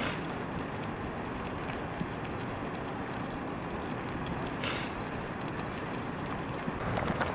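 A steady low rush with faint crackles from a wood fire under a wok of simmering greens, and a short hiss about four and a half seconds in. Near the end the wooden paddle starts scraping and knocking in the wok.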